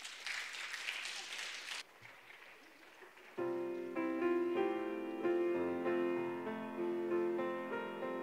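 Brief applause from the congregation that stops suddenly about two seconds in. Then a grand piano starts playing a slow, sustained passage of chords and melody.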